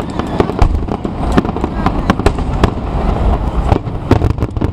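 Aerial firework shells bursting in rapid, irregular succession: many sharp bangs and cracks over a continuous low rumble.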